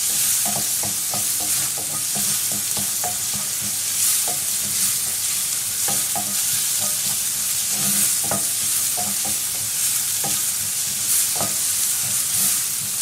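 Chopped garlic sizzling in olive oil and butter in a pan on high heat. It is being stirred, with frequent irregular clicks and scrapes of a utensil against the pan.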